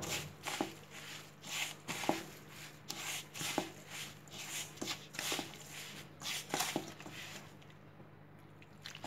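A hand mixing and squeezing damp semolina crumbs in a stainless steel bowl: a run of gritty rustling strokes, about two a second, that die away near the end.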